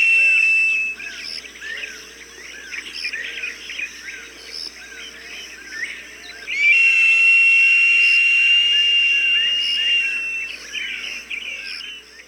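Hawk calls: a long, high, steady whistled note ends about a second in, and another is held for nearly four seconds from about halfway through, falling slightly at its end. Quick short chirps repeat in between.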